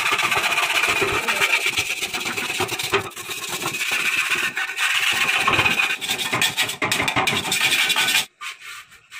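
Metal scraper blade scraping flaking paint and rust off a Honda CG125's steel fuel tank in quick repeated strokes, a loud rasping scrape with a high screech. It stops suddenly near the end.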